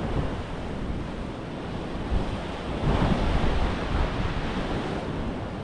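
Sea waves washing against a rocky shore, with wind buffeting the microphone; the wash swells louder about three seconds in.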